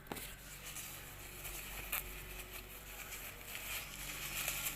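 Rustling of a cloth face mask and tissue being handled as tissue is pushed into the mask's inner pocket, with a couple of light clicks.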